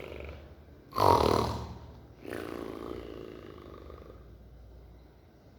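A woman imitating a dog's snoring with her voice: one loud snore about a second in, then a softer, longer one that fades away.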